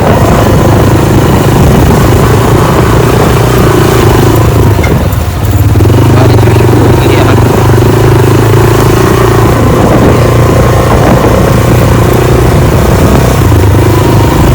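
Motor vehicle engine running steadily while under way, easing off briefly about five seconds in.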